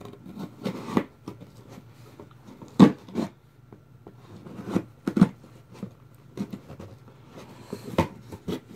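Duct tape being cut and pulled off a cardboard shipping box: irregular scrapes, rustles and sharp knocks of handled cardboard. The loudest knocks come about three and five seconds in.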